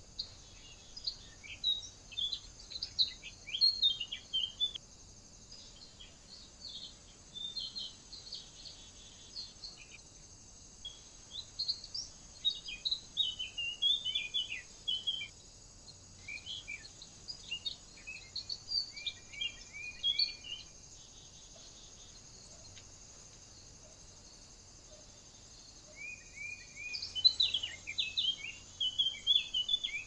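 Wild songbirds singing and chirping in woodland: groups of short, high chirps and trills with quieter pauses between them, over a faint steady high hiss. Near the end, a quick run of repeated short notes.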